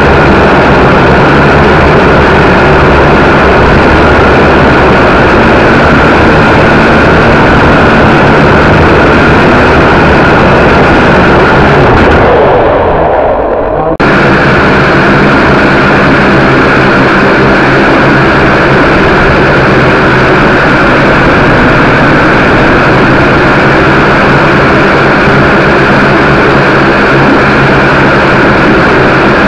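Quadcopter's electric motors and propellers running, heard loud and close through the onboard camera as a steady hum with several pitched tones. About halfway the sound dims and falls away, then cuts straight back in at full level.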